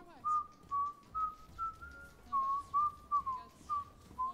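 A person whistling a tune: a string of short, clear notes, a couple a second, staying around one pitch with small rises and falls.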